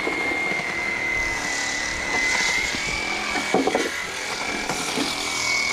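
Wooden planks being handled and set against one another on the ground, with a few dull knocks, the clearest about three and a half seconds in. A steady high-pitched whine from a running machine sounds throughout.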